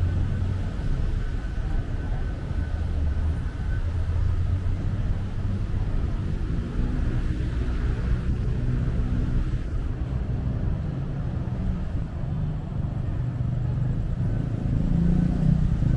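Steady city road traffic: cars and other motor vehicles running and passing, mostly a low engine sound. One engine hum stands out around the middle, and a louder vehicle comes up near the end.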